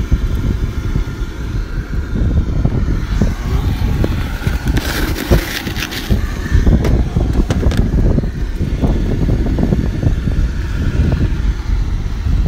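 Wind buffeting the microphone: a loud, uneven low rumble throughout, with a brief hiss about five seconds in.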